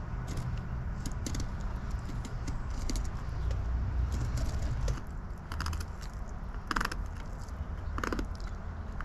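Fillet knife cutting along a longnose gar's body to free the fillet, giving scattered sharp clicks and, in the second half, short runs of rapid clicking as it crosses the bones, over a steady low rumble.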